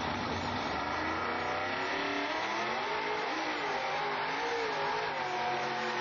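Lifted four-wheel-drive pickup on big tyres revving hard as it accelerates across dirt. The engine pitch rises and falls several times from about two seconds in.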